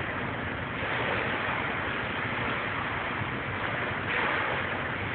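Steady rushing, water-like noise of an indoor swimming-pool hall, swelling a little about four seconds in.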